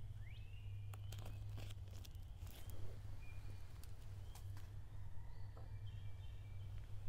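Faint birdsong: short chirps from small birds over a steady low hum, with a few soft clicks and taps.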